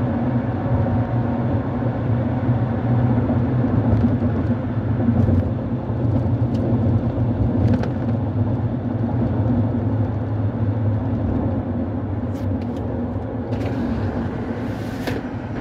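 Steady low rumble of engine and road noise heard inside the cabin of a car being driven, with a few faint clicks.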